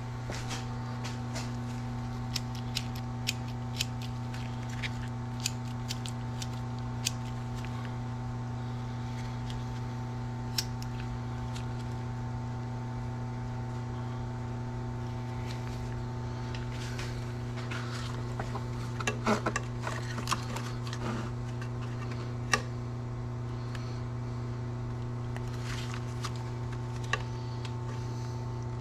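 Steady low hum, like a shop fan or heater, under scattered light clicks and taps of small parts and tools being handled, with a short cluster of sharper clicks about two-thirds of the way through.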